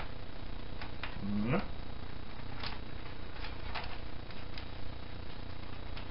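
Light, scattered clicks and taps of plastic as a PlayStation 1's top shell and disc lid are handled and fitted onto the console base, with a short grunt about one and a half seconds in.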